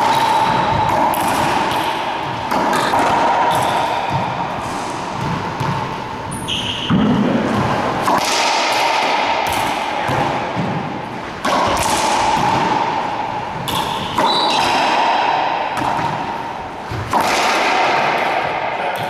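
Racquetball doubles rally: the rubber ball struck by racquets and rebounding off the court walls and floor, a string of sharp thuds that echo in the enclosed court, with a few short sneaker squeaks.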